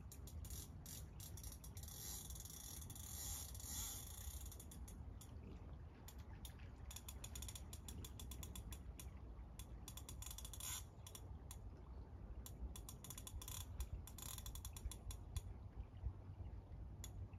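Centrepin reel's ratchet clicking as the drum turns while a hooked chub is played, in runs of rapid clicks that come thickest in the first few seconds and again in bursts near the end.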